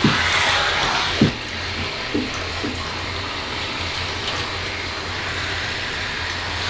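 Handheld shower spraying water onto a cat's wet coat, loud for about the first second, then easing to a quieter steady rush of water.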